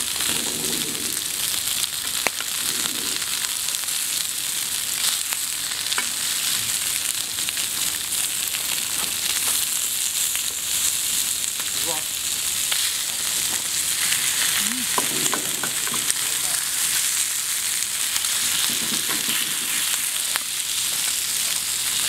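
Pork neck meat sizzling steadily on a hot flat griddle plate, with a few sharp clicks of the metal cleaver and tongs against the plate.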